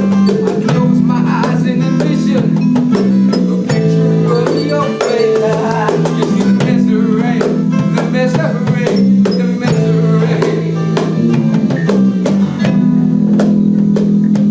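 Live rock band playing: a drum kit keeps a steady beat under sustained guitar and bass chords.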